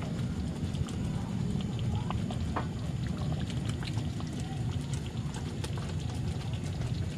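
Pan of flour-thickened sweet-and-sour sauce simmering, with scattered small pops and crackles over a steady low rumble.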